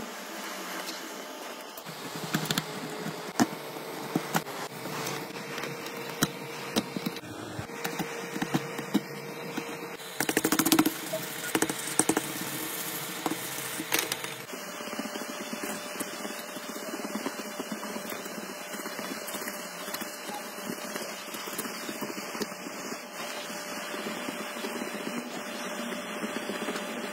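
A hot-air nozzle blows steadily while a metal tool scrapes and chips shattered back glass off an iPhone frame, with many small clicks and crackles of glass breaking away. A louder stretch of scraping comes about halfway through.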